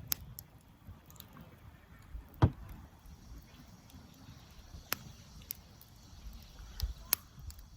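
Wood fire burning, with a few scattered sharp pops and a louder knock about two and a half seconds in, over a low rumble.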